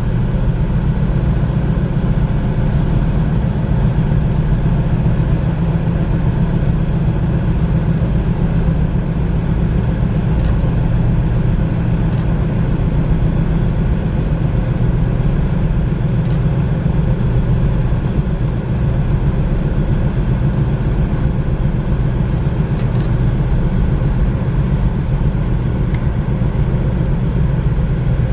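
Steady, loud low engine rumble with a deep even hum, unchanging throughout.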